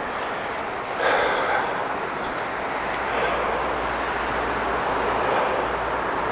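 A person breathing hard close to the microphone while climbing stone stairs, with slow, heavy breaths that swell about a second in and again a few times after.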